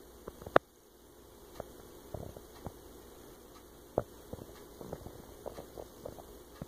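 Popcorn machine running, with scattered sharp pops and clicks at irregular intervals. The loudest comes about half a second in, another sharp one at four seconds, and they come more often near the end.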